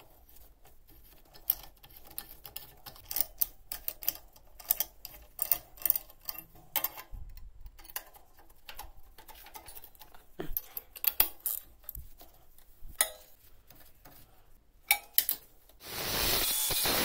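Scattered light clicks and clinks of steel plate and angle pieces being handled and fitted together with gloved hands. Near the end an angle grinder starts cutting steel with a loud steady rasp.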